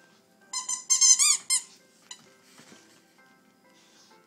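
Pitbull puppy biting a blue rubber squeaky ball: a quick run of squeaks in the first two seconds, the last few longer with a wobbling pitch, then only faint rustling.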